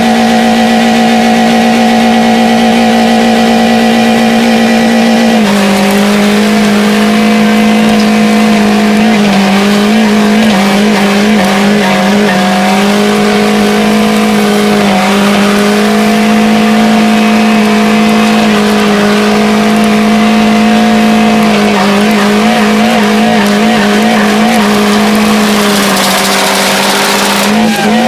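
Car engine held at a steady, very high speed, running flat out to blow it up. Its pitch stays nearly level, stepping down slightly about five seconds in and wavering now and then. A loud hissing rush joins just before the end.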